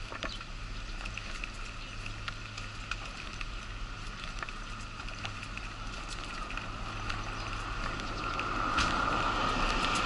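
Wheelchair rolling along a brick-paved sidewalk, its wheels clicking and rattling irregularly over the paving joints above a steady hum and whine. A louder rushing noise builds over the last two seconds.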